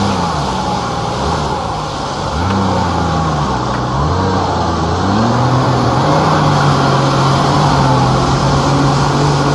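Jet ski engine revving up and down a few times, then holding a steady pitch through the second half, over a steady hiss.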